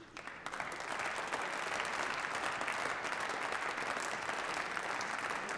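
Applause from members of parliament in the Bundestag chamber, a dense steady clapping that builds up within the first second and holds.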